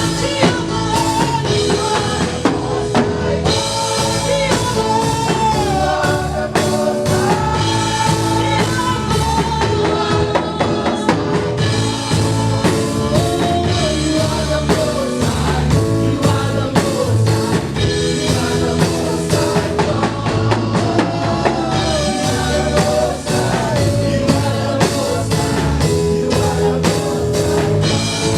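Gospel song with a sung vocal melody over a band with drum kit, playing steadily at full level.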